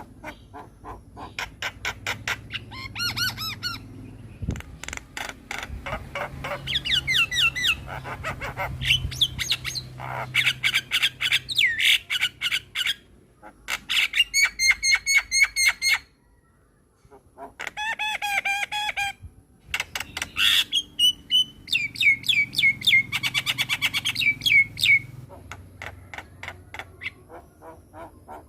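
Javan myna singing: a long, varied run of rapid chattering notes, squawks and whistled phrases, broken by a short pause a little after the middle.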